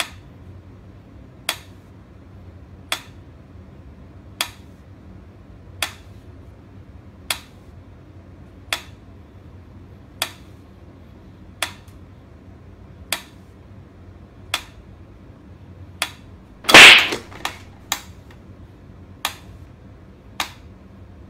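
Mechanical pyramid metronome ticking slowly and evenly, about one tick every second and a half. About seventeen seconds in, a short, loud noisy burst, the loudest sound, breaks in, followed by a few quick clicks.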